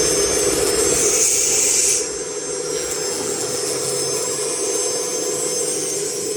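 A 4-axis CNC router running, its spindle giving a steady whine while it cuts. A loud, hissing cutting noise fills the first two seconds, then drops to a quieter cut.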